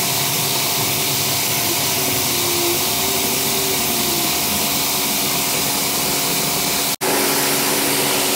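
Concrete mixer truck running steadily, a hum with a hiss over it, while wet concrete slides down its chute into a footing. The sound drops out for an instant about seven seconds in.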